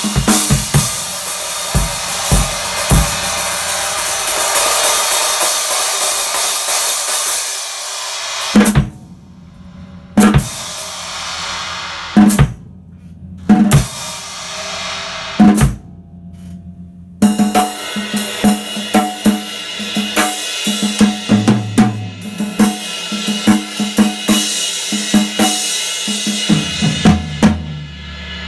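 Drum kit groove played with the snare drum's snares off, giving it an open, tom-like tone, over kick drum and cymbals. For the first third the cymbals ring in a steady wash over the drums. Then come a handful of single hard hits with short silences between them, and the full groove picks back up.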